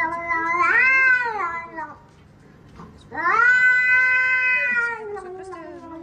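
Grey shorthaired cat yowling at a hand reaching toward it, in two long drawn-out calls. The first swells and bends up in pitch about a second in. The second starts about three seconds in and sinks lower toward the end.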